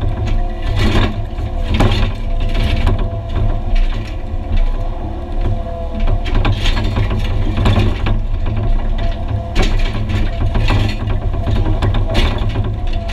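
Excavator working on broken concrete: a steady diesel engine drone under load, with irregular metallic clanks, knocks and scrapes scattered throughout.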